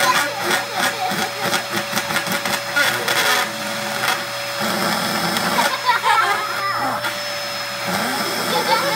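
Vacuum cleaner running with a steady whine, its airflow making a stuffed toy giraffe flap in a rapid fart-like sputter during the first three or four seconds.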